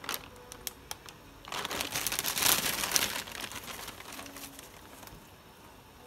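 Plastic bag of cocopeat crinkling as it is handled and tipped, with loose coir rustling into a glass tank. A few light ticks come first, then a burst of rustling about a second and a half in that lasts about two seconds and fades.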